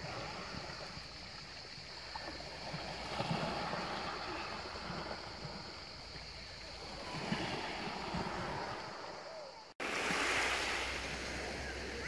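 Small sea waves lapping and washing over a pebble shore, a steady wash of water. About ten seconds in it breaks off for an instant and comes back brighter.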